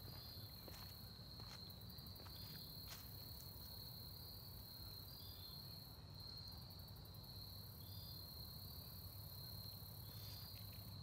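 Crickets trilling in a faint, steady, high-pitched chorus, with a few soft clicks in the first three seconds.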